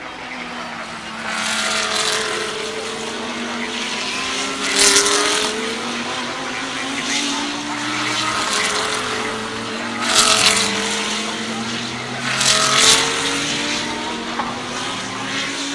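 GT3 race cars running at speed on a circuit, engines rising and falling in pitch through gear changes. Cars sweep past closely four times, at about 2, 5, 10 and 13 seconds.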